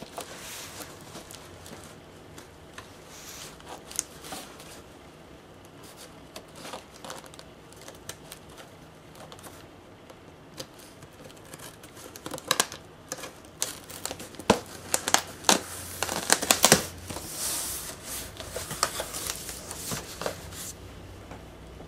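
Box cutter slicing through packing tape on a cardboard shipping box, with scraping and tape crackle, then the cardboard flaps being pulled open with crinkling and bumps. The handling is sparse at first and busiest about two-thirds of the way through.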